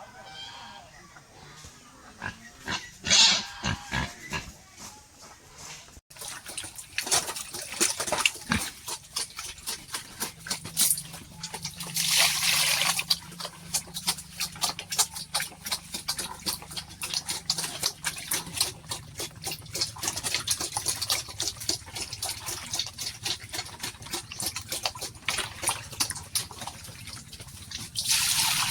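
Pigs grunting, with a dense run of quick clicks from about six seconds in and a steady low hum underneath from about eight seconds in.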